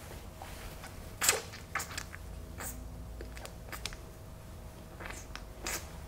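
Wet sucking and slurping noises from a mouth drawing hard on a softened Somni snore guard held between the teeth and lips, moulding it to the teeth. They come as a series of short smacking hisses, the loudest about a second in.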